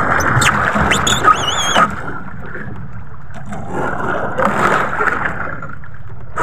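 Small outrigger fishing boat's engine running steadily, with wind and water noise, as a hooked fish is hauled in on a handline. About a second in there is a brief wavering high squeal.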